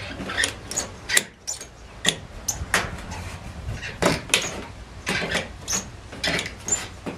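Hand metal shears snipping through the sheet-metal skin of a travel trailer, a run of short, sharp snips and crunches about two or three a second at an uneven pace, as the shears trim the excess flush at a 45-degree angle.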